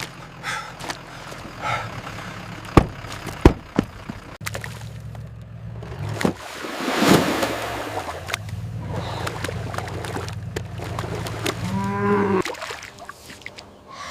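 A cow moos once, briefly, near the end, over a steady low hum. A couple of sharp knocks come about three seconds in, and a rushing, splashing noise swells and fades around the middle.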